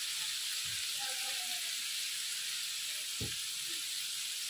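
Hot oil sizzling steadily in a wide tawa, frying an onion, tomato and yogurt masala. One soft low thump about three seconds in.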